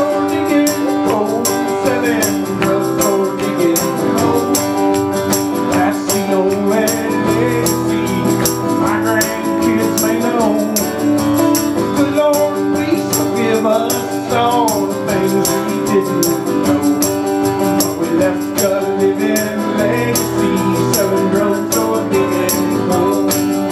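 Live acoustic music: a strummed acoustic guitar keeping a steady rhythm, with a wavering melody line over it.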